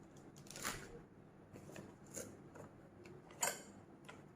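Faint rustling and light clicks of packaging and small accessories being handled while a new grinder is unboxed, with a few brief louder scrapes spread through.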